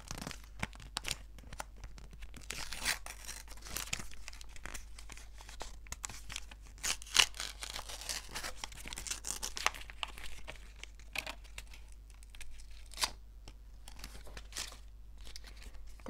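Paper crinkling and tearing as a small white paper sticker packet is pulled open by hand, with sharp crackles throughout; the loudest comes about seven seconds in.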